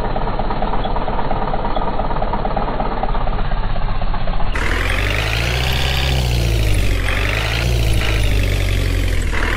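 An engine-like motor running steadily. About four and a half seconds in it changes abruptly to a fuller sound whose pitch rises and falls twice.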